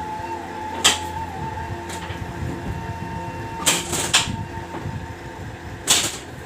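Sharp clacks from a chiropractic adjustment on a treatment table: one about a second in, two close together in the middle, and one near the end. A steady hum runs underneath.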